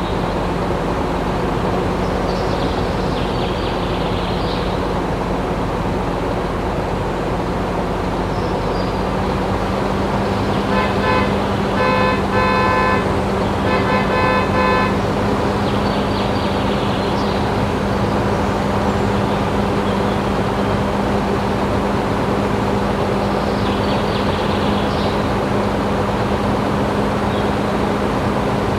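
Small motor of a DIY mini tractor running with a steady hum. About eleven seconds in come three quick clusters of rapid pitched beeps, like a toy horn.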